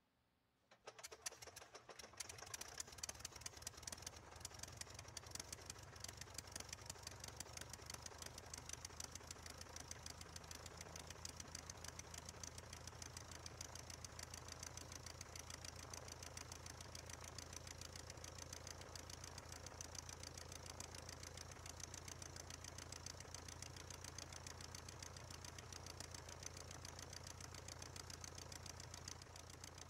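A 1946 Aeronca Champ's small four-cylinder air-cooled aircraft engine catches after being hand-propped, about a second in. It runs unevenly for a moment, then settles into a steady idle.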